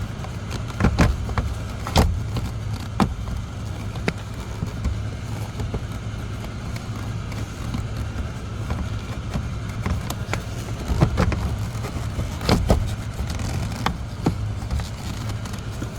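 Scattered plastic knocks and clicks as a blower motor is pushed up and fitted into its housing under a car's dashboard, over a steady low rumble.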